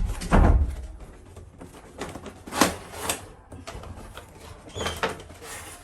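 A toy car's packaging being handled and opened: a heavy thump about half a second in, then several short scraping, rustling sounds.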